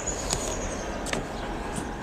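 A passing train's steady rolling noise, with two sharp clicks, one about a third of a second in and one just past a second.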